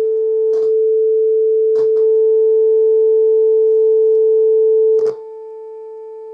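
Steady 440 Hz test tone from an oscillator, played through bookshelf speakers driven by a bridged LM386 amplifier, with faint overtones above it. A few short clicks sound over it, and about five seconds in the tone drops sharply in volume.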